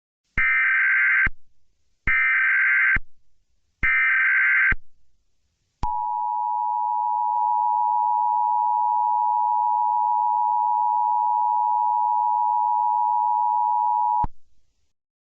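Emergency Alert System SAME header: three short bursts of data screech, each just under a second, followed by the two-tone attention signal, held steady for about eight seconds before cutting off. It marks the start of an emergency alert broadcast.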